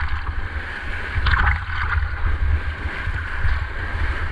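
Strong wind buffeting the microphone over the hiss and slap of a kiteboard skimming across choppy lake water, with a louder rush of spray about a second and a half in.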